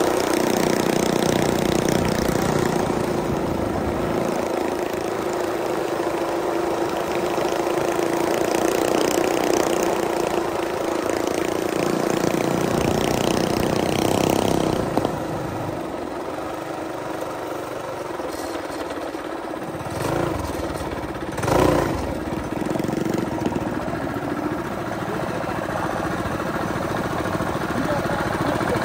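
Small single-cylinder four-stroke mini bike engine running while riding, its note holding steady for about the first half. About halfway through the engine note drops and the sound gets quieter, with a couple of brief louder swells later on.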